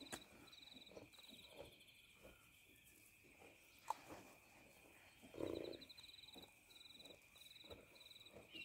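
Near silence outdoors: faint, rapid high chirping trills repeating in short groups over a steady faint high whine, with a brief louder low sound about five and a half seconds in.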